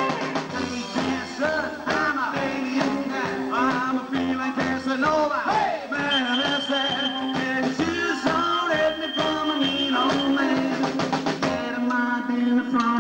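Live rockabilly band playing, with upright double bass, electric guitar and drums. A steady walking bass pulse runs under a lead line of bending notes.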